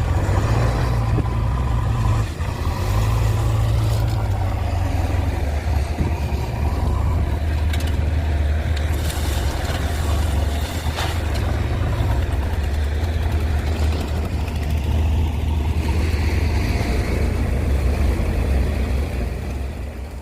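Heavy diesel machinery engine running steadily with a deep low hum and a few faint knocks, fading out near the end.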